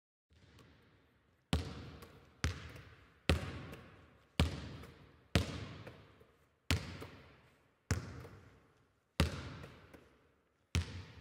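A ball bouncing on a hard floor, about once a second and unevenly spaced. Each bounce rings on and echoes as in a large sports hall.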